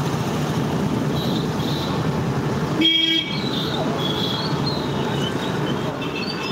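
Street traffic noise heard from a moving motorbike, with a short vehicle horn blast about three seconds in, the loudest sound.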